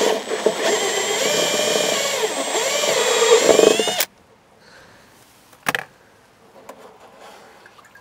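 Cordless drill with a step drill bit boring through the wall of a plastic barrel, running for about four seconds. Its pitch dips and recovers as the bit bites into the plastic, and it stops abruptly. A single sharp knock comes a couple of seconds later.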